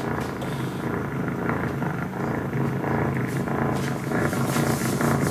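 A recording of a cat purring played back from a CD: a steady low rumbling purr that pulses throughout.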